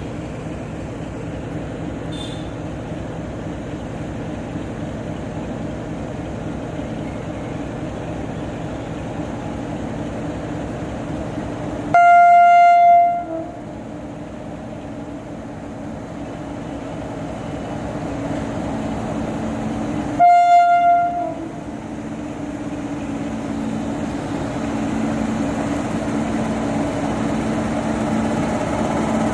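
WAP-7 electric locomotive's horn sounding two long single-note blasts about eight seconds apart. Under them runs the steady rumble of the approaching train, which grows louder toward the end.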